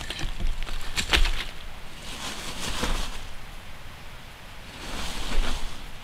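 Wind gusting through the forest canopy in rising and falling swells, with wind rumble on the microphone. There is a brief rustle of leaves or clothing about a second in.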